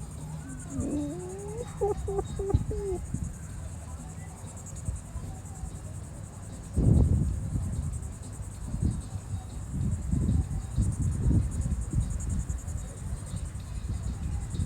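Crickets chirping steadily in a high, pulsing band, with a brief wavering pitched sound in the first few seconds and irregular low rumbling thumps from about seven seconds in.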